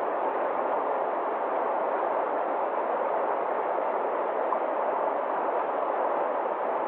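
Forest stream rushing over rocks and a small cascade: a steady, even rush of water.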